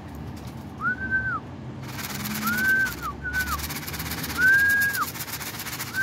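A person whistling a pigeon call: a string of short whistles on one held note, each rising in, holding and dropping away at the end, about a second apart. A hissing noise sits behind them from about two seconds in.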